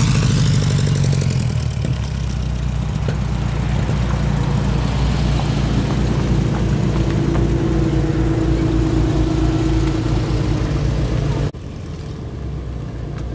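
A car engine running close by with a steady low hum. About eleven seconds in, the sound drops abruptly to a quieter engine hum.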